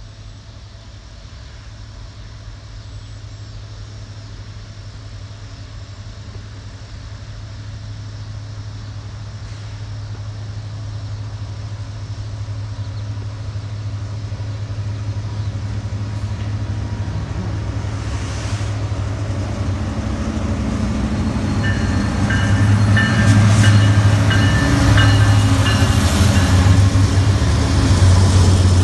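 A Canadian National EMD SD70M-2 diesel locomotive, with its 16-cylinder two-stroke engine, approaches with a low, steady rumble that builds steadily louder as it draws up. Over the last several seconds, as the locomotive reaches the listener, the sound is at its loudest and some steady high tones join the rumble.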